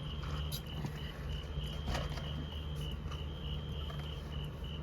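Crickets chirping steadily, a high pulsing trill, over a steady low hum, with a brief click about two seconds in.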